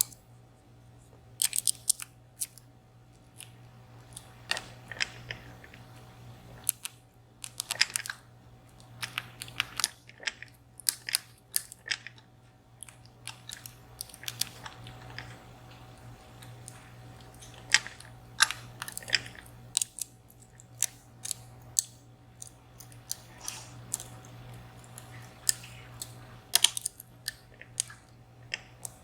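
A pick scraping and clicking against the pins inside a VSR 14-pin dimple lock while the pins are worked, heard as irregular small metallic clicks and ticks over a steady low hum.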